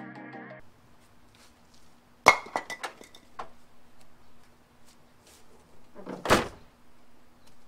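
Background music that stops within the first second. Then a sharp metallic clank with a brief ring about two seconds in, a few lighter clicks, and a louder knock near the end: metal and tool noises from work on a car's steel hood.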